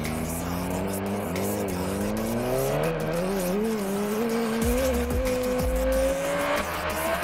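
Yamaha YZF-R1 sport bike's inline-four engine accelerating, its pitch climbing steadily for several seconds with a little wavering as the revs rise.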